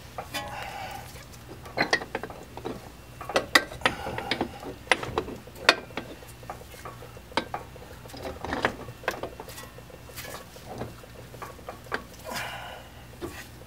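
Irregular metallic clicks and clunks of a CV axle being pushed and turned against the transmission, its splined end and snap ring struggling to seat.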